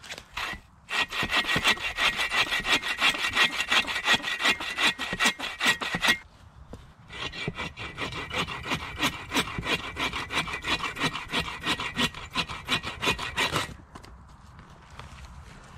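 A saw cutting through wood in quick back-and-forth strokes, in two long bouts with a short pause between them about six seconds in.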